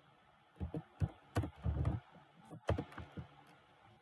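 Typing on a computer keyboard: irregular clusters of key clicks that begin about half a second in.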